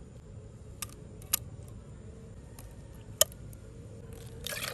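A few sharp taps and clicks as thick ground masala paste is scooped into an earthen clay pot, with a brief rush of noise near the end.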